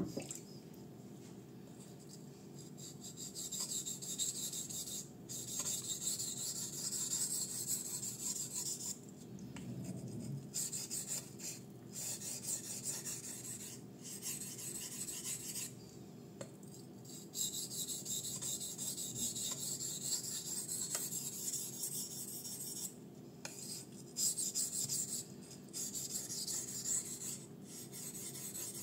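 Kizer Fighter folding knife's 154CM steel blade being stroked back and forth across a Makita medium-grit waterstone, a gritty scrape on every pass. The strokes come in runs broken by short pauses.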